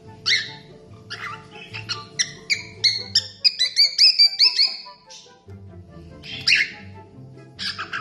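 Cockatiel whistling: one short call, then a rapid string of short chirping notes for about four seconds, then two more single calls near the end.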